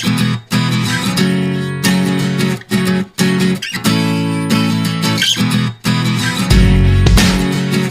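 Background music led by strummed acoustic guitar in a steady rhythm, with a deep bass coming in about six and a half seconds in.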